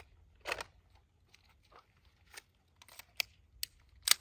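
Pistol being loaded and readied: a series of short metallic clicks and scrapes as a magazine is seated and the slide worked, with the two sharpest clicks close together near the end.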